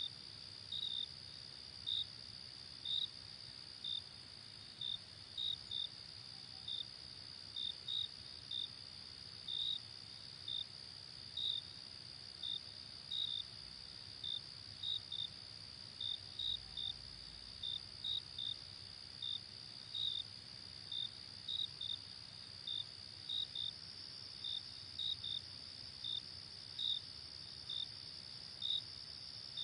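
Crickets chirping: short chirps about once or twice a second over a steady, high-pitched insect trill.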